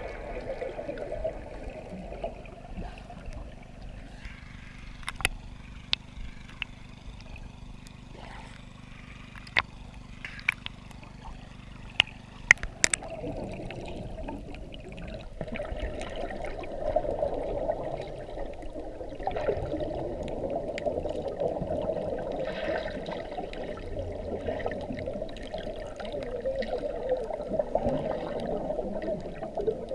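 Underwater sound picked up by a submerged camera: muffled water noise with scattered sharp clicks, turning about halfway through into a louder bubbling and churning as trails of air bubbles stream past.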